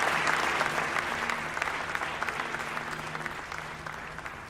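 An audience applauding, the clapping fading away steadily.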